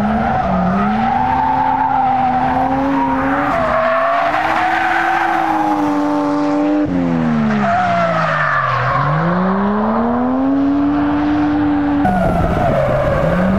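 Toyota 1JZ-GTE turbocharged straight-six in a swapped Altezza, being driven hard on track: the engine note rises and falls several times as the revs climb and drop, with tyre squeal over it. The sound changes abruptly twice, about 7 and 12 seconds in.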